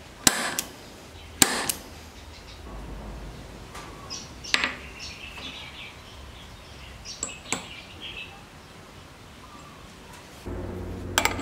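Two sharp snaps about a second apart from a spring-loaded centre punch marking mild-steel bars on a vise's anvil, then a few lighter clinks as the steel bars are handled. Near the end an electric motor starts a steady hum.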